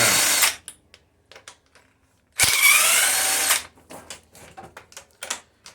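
Cordless impact wrench with a 15 mm socket spinning out loosened cylinder head bolts on a 5.3 LM7 V8, in short bursts with a rising whine. One burst ends about half a second in and another runs for about a second near the middle, with light clicks of socket and bolts in between.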